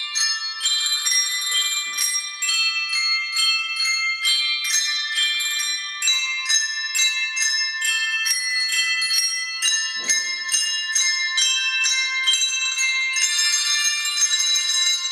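Handbell ensemble playing a tune: a steady run of struck handbell notes, each ringing on and overlapping the next, often several at once.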